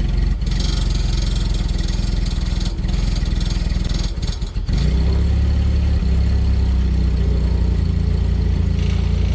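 A heavy truck's engine running, easing off briefly about four seconds in and then picking up steadily again.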